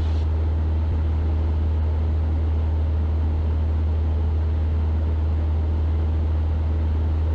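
Steady drone of a Cessna 172's engine and propeller in flight, heard inside the cabin: a deep, even hum that does not change.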